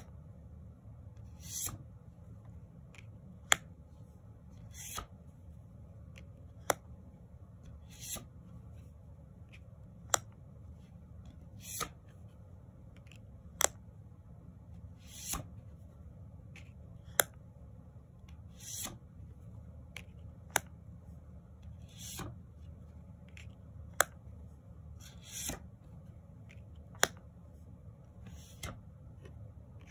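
Tarot cards slid one at a time off the top of a deck, card rubbing on card. Each card gives a soft swish, then a sharp light tap a couple of seconds later, one card about every three and a half seconds, over a steady low hum.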